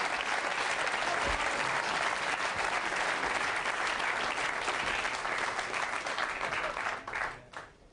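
Group of people applauding steadily, the clapping dying away about seven seconds in with a few last separate claps.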